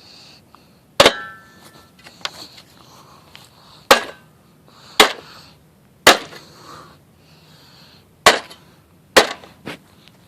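A junk Hoover Elite vacuum cleaner being struck hard: six loud, sharp bangs at uneven intervals about one to two seconds apart, with a few fainter knocks between. The first blow leaves a brief metallic ring.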